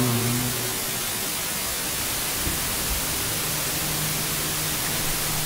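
Steady static hiss from a ghost-hunting spirit box (Wonderbox) played through a small portable speaker. A low hum dies away about half a second in.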